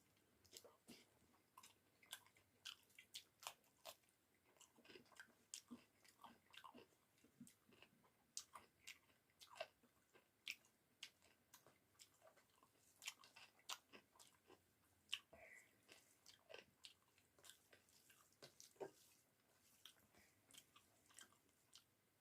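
Quiet, close-up chewing and biting sounds of a person eating rice with bamboo-shoot and potato curry: irregular small wet clicks, a few each second.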